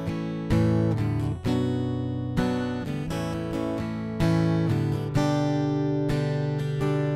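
Cutaway acoustic guitar played fingerstyle: plucked chords and melody notes ringing over low bass notes, with a fresh attack every second or so and quicker notes in between.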